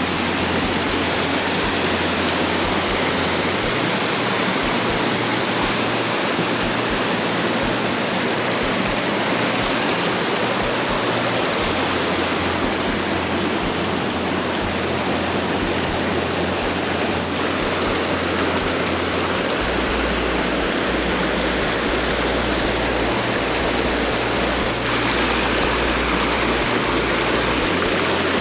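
Rushing water of a mountain creek: a loud, steady roar of white water that starts and stops abruptly.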